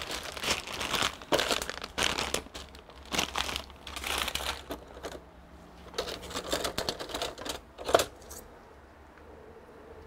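Plastic bag crinkling and rustling as it is handled, then rummaging and clicking among loose RAM modules in a plastic tub, ending with a sharp knock about eight seconds in.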